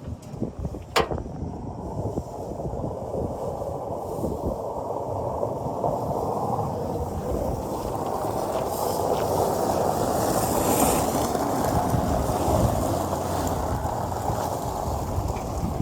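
John Deere 2155 tractor's diesel engine running steadily, growing louder over the first ten seconds, with a sharp click about a second in.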